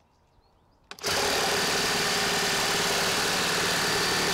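Makita 18V X2 LXT (36V) brushless cordless reciprocating saw starting about a second in on its low speed setting and cutting steadily through pressure-treated 4x6 lumber. A small click comes just before it starts.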